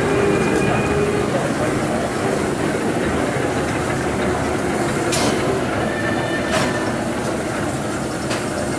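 Class 03 express steam locomotive 03 1010 slowly turning on a turntable: a steady rumble and hiss, with three sharp knocks about a second and a half apart in the second half.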